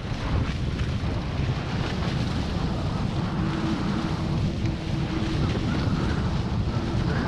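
Wind buffeting the microphone over the rush and splash of water peeling off a Hobie 16 catamaran's hull as it sails at speed. A faint steady hum comes in about three seconds in.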